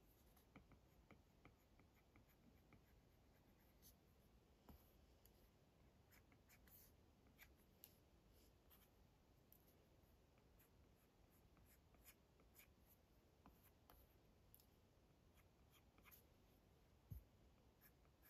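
Apple Pencil tip faintly tapping and scratching on an iPad screen in short, irregular sketching strokes. One soft thump near the end.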